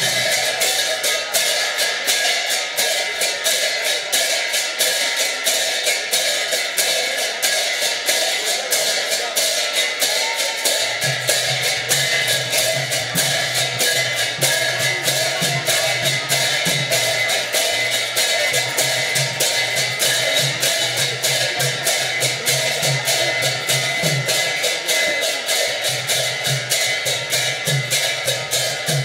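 Large brass hand cymbals clashed over and over in a fast, steady rhythm, their ringing left hanging between strokes. About a third of the way in, a two-headed barrel drum joins with low beats under the cymbals.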